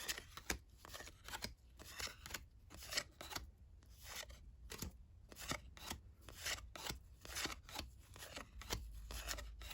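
1990-91 NBA Hoops cardboard trading cards being flipped through and set down one by one: a run of light flicks and taps, a few a second.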